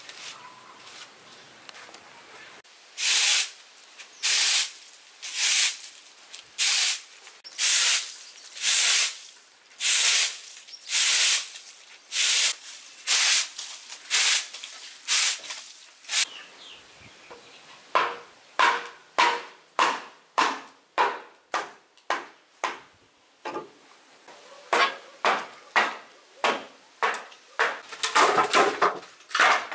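A hand tool striking repeatedly: about a dozen scraping strokes roughly once a second, then after a short pause quicker, sharper strikes about twice a second with a slight ring.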